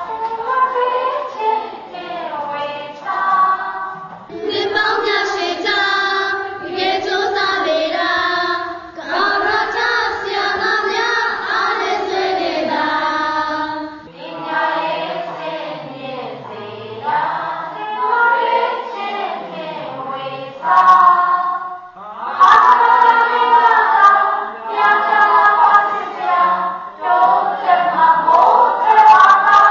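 A group of voices singing a song, in sung phrases of a few seconds with short breaks between them, louder in the last third.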